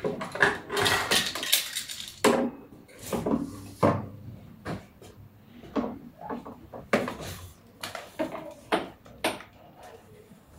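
Objects in a mixed heap of wood, metal and plastic items being handled, tapped and shifted by hand: a dense rattling, scraping clatter for the first couple of seconds, then a string of separate knocks and clinks.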